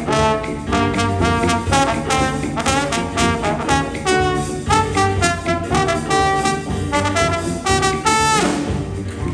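Brass band playing jazz, trumpets and trombones sounding a rhythmic riff of short repeated notes, ending about eight seconds in with a quick rising slide.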